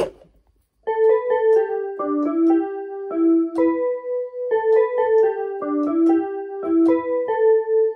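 Yamaha electronic keyboard playing a simple melody of separate notes, the same short phrase played twice. A knock at the very start as the keyboard is set in place.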